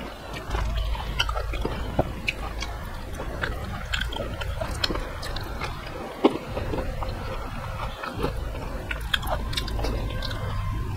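Close-miked chewing of a mouthful of rice and vegetable curry eaten by hand, with many small sharp clicks scattered throughout.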